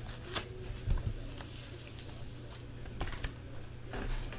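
Sports trading cards being handled by hand: a few scattered rustles and light clicks.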